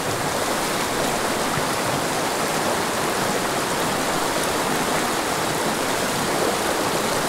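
Small mountain creek running over rocks: a steady rush of water with no breaks.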